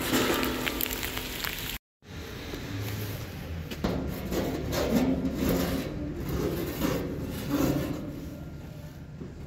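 Correction pen tip scraping and rubbing across rusty steel in irregular strokes as letters are drawn. The sound cuts out briefly about two seconds in.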